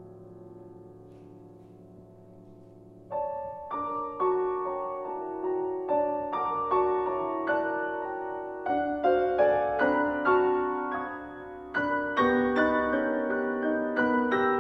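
Steinway grand piano played solo. A held chord fades away for about three seconds, then new notes and chords are struck at about two a second, growing fuller and louder near the end.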